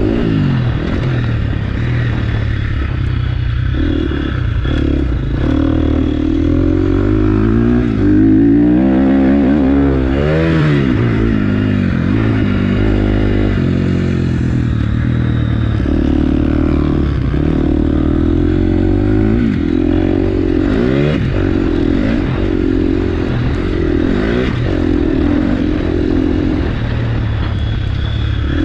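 Motocross bike engine under riding load, heard close from on the bike, revving up and dropping back again and again as the throttle opens and closes, its pitch rising and falling with each surge.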